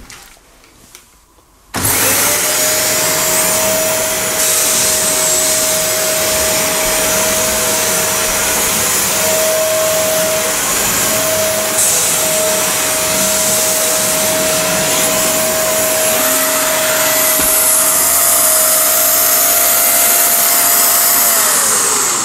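Dyson DC39 cylinder vacuum cleaner switched on about two seconds in, running steadily with a high whine while its floor head goes over carpet, then winding down near the end. The owner judges that it is not picking up well, and that it is much quieter than he expected.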